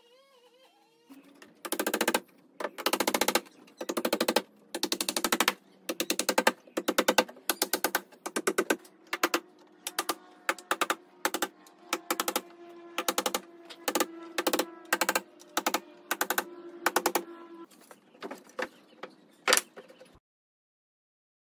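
Hammer driving nails into timber trim boards on a wooden dog house gable: a long run of sharp blows, roughly one to two a second, with the wood ringing under them. It cuts off suddenly near the end.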